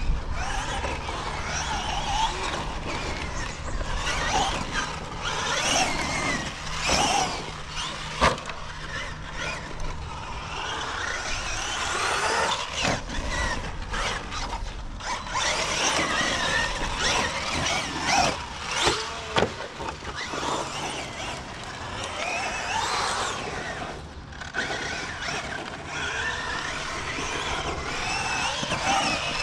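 Traxxas Maxx Slash RC short course truck driving on a 6S battery: its electric motor whines, rising and falling in pitch as the throttle is worked. Sharp knocks come about 8 s in and again several times through the middle.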